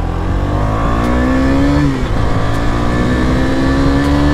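KTM Duke 250's single-cylinder engine pulling hard under acceleration. Its pitch climbs, drops sharply at an upshift about two seconds in, then climbs again in the next gear.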